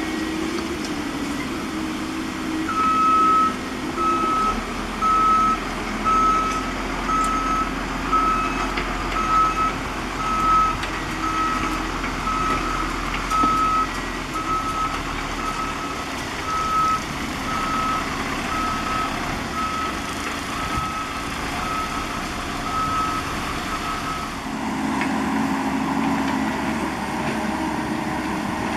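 Backup alarm on heavy equipment beeping in a steady, even rhythm of about one beep every 0.7 s over a running diesel engine. The beeping stops near the end while the engine keeps running.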